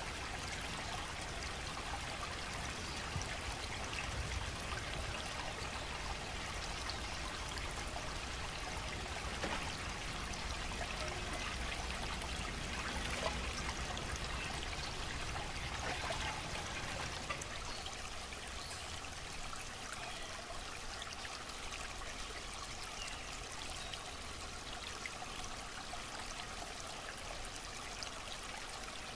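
Steady trickle of running water, with a few faint ticks and splashes.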